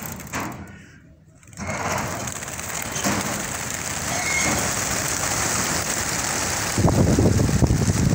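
A large flock of racing pigeons taking off from a transport trailer, their many wings beating in a dense, rain-like whirr. It starts suddenly about a second and a half in and grows louder near the end.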